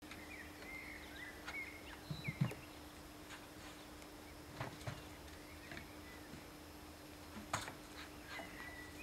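Faint outdoor ambience of birds chirping and calling, with a few short knocks and a steady low hum underneath.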